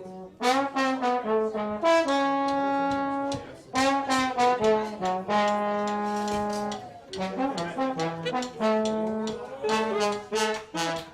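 A single brass instrument playing a slow melody of long held notes in short phrases with brief gaps between them.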